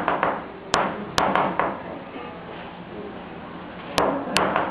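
Sharp wooden knocks of a spirit-writing planchette striking the sand table: two about a second in with a lighter one just after, then two more near the end.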